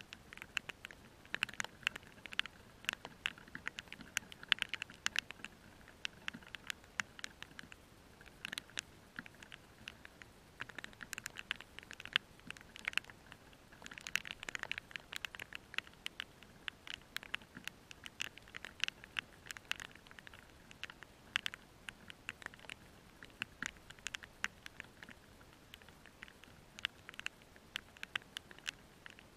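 Rain pattering: an irregular run of sharp raindrop ticks, several a second, over a faint background hiss.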